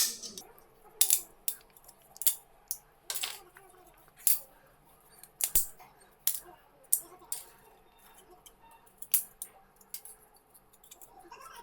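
3D-printed plastic support material being cut and snapped away from a printed part: an irregular series of sharp clicks and cracks, the loudest about one, three, four and five and a half seconds in. The supports are very strong.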